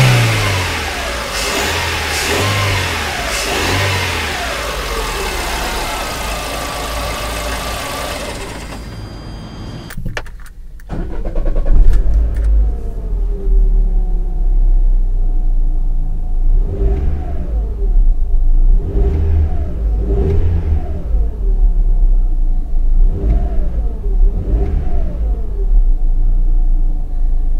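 Lada Largus 1.6-litre 16-valve inline-four petrol engine running and being revved in short blips that rise and fall back, heard first under the open bonnet. About ten seconds in, the sound changes to a deeper, heavier rumble as heard from inside the cab, with the engine near idle and several more rev blips every couple of seconds.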